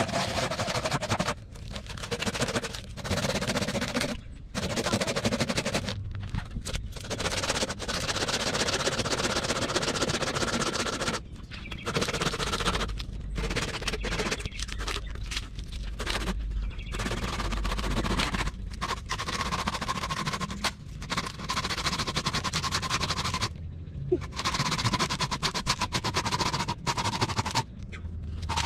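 Hand pruning saw cutting through a birch log: runs of fast rasping strokes, the teeth clicking rapidly through the wood, broken by short pauses.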